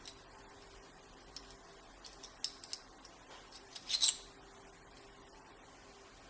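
Small metal clicks and light scraping of lock tools against the parts of a disassembled Iseo euro cylinder, a few scattered taps and then a louder cluster of sharp clicks about four seconds in.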